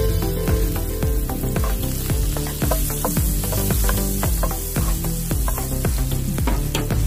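Garlic and shallots sizzling in hot oil in a frying pan as a spatula stirs them, under background music with a steady beat.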